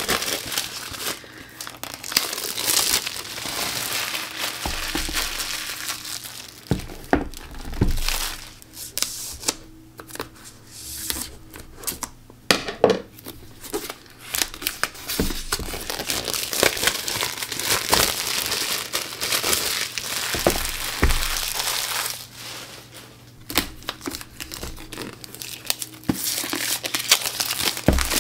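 Plastic shrink wrap crinkling and tearing as it is peeled off cardboard journal boxes, with a quieter pause about a third of the way in. A few dull knocks come now and then.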